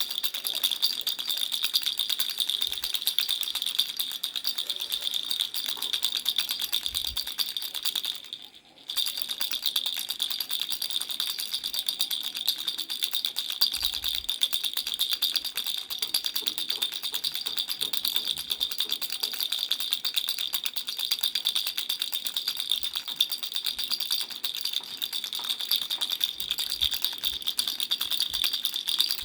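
Baby rattle toy being shaken continuously in a fast, dense clatter, with a brief pause about eight seconds in.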